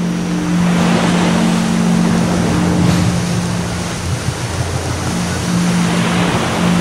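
Ocean surf rushing and washing in, over a low steady hum that drops out briefly about two thirds of the way through.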